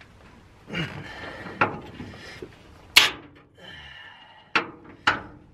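Hand tools knocking and clanking against a rusted truck-bed bolt and the frame underneath the truck: about five sharp knocks, the loudest about three seconds in, with a short squeak just after it.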